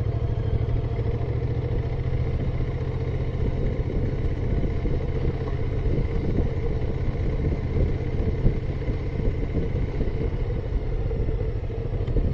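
Motorcycle engine running steadily while the bike rides along at an even pace.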